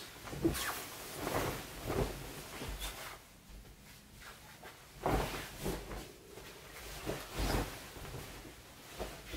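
Bedding rustling as a person shifts and rolls under a comforter and fleece blanket, in two spells of rustling, the second starting about five seconds in.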